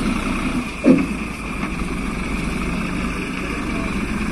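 Flatbed truck's diesel engine running as the truck drives slowly away on a dirt road, with a short loud sound about a second in that drops in pitch.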